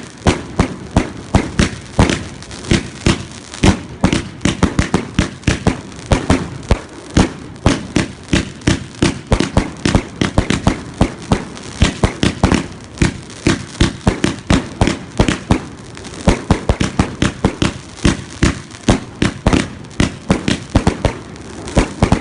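Fireworks going off in a rapid, unbroken barrage of sharp bangs, several a second, varying in loudness.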